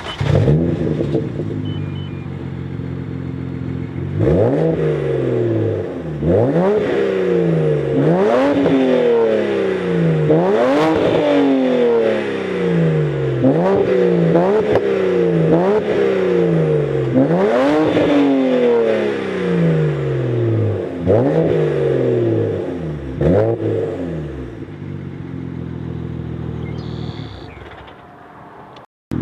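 2007 BMW 335i's twin-turbo inline-six through a turbo-back Magnaflow quad-tip exhaust. It idles, then is revved about a dozen times in quick blips, each rising sharply and falling back more slowly, and then settles to idle again.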